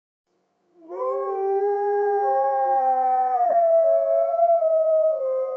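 Wolves howling: several long, held howls at different pitches overlap, starting about a second in and sliding slightly down in pitch.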